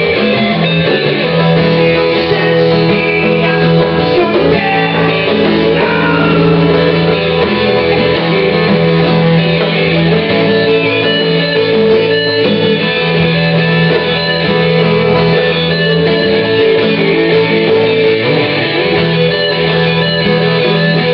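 Band music led by guitar, with long held notes over a continuous, even-level backing.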